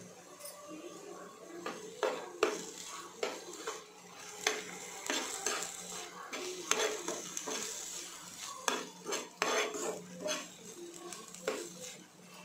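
Perforated steel spoon scraping and clinking against a non-stick frying pan as chopped vegetables and sauce are stirred and tossed, over a light sizzle of frying. The stirring starts about two seconds in and goes on in quick, irregular strokes.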